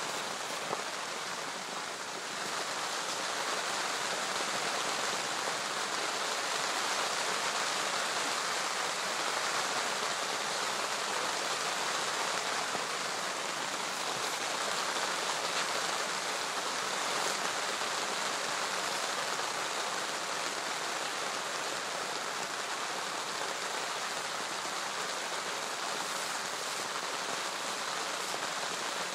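Steady rain falling on a lake's surface.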